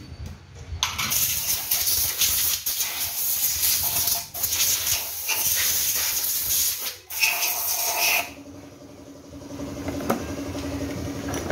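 Compressed air blowing from an air hose onto a chainsaw cylinder and crankcase assembly: a loud hiss in several long blasts with brief pauses between them. It stops about eight seconds in, and a steady motor hum carries on.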